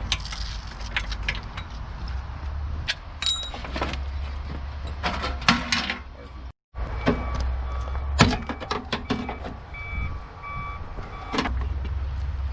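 Scattered clinks and knocks of hand tools and metal car parts being handled, over a steady low rumble.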